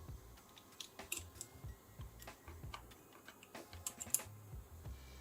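Light plastic clicks and taps from handling the parts of an opened PS4 DualShock 4 controller, with a couple of sharper clicks about four seconds in.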